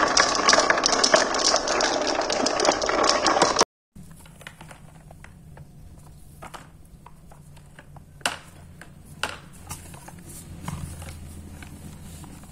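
A pack of marbles clattering down a wooden pegboard, bouncing off the wooden pegs in a dense, continuous rattle of clicks that cuts off abruptly about four seconds in. Then come sparse, quiet clicks and knocks as a plastic toy dump truck is handled.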